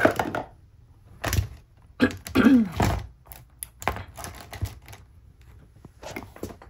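Plastic Zebra Mildliner highlighters clicking and clattering against each other as a handful is packed into an organizer compartment: a run of light clicks, with the loudest clatter about two seconds in.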